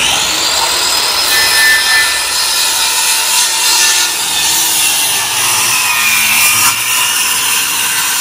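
Corded circular saw running and cutting steadily through a plywood sheet, a continuous loud cutting noise with the motor's whine over it.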